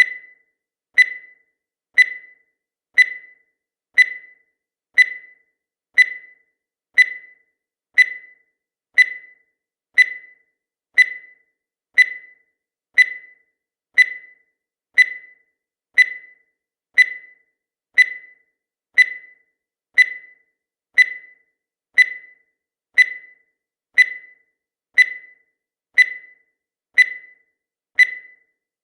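Countdown timer's sound effect: a short high tick once every second, each sharp at the start and dying away quickly.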